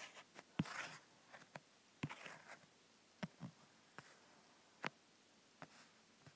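Faint, scattered clicks and taps at irregular spacing, about ten in all, with short rustles about half a second and two seconds in.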